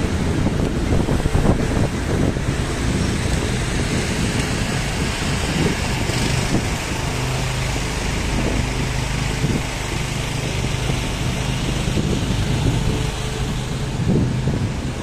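Road traffic passing on a busy city street: a steady rumble of cars and engines, with a low engine hum standing out for a few seconds about halfway through.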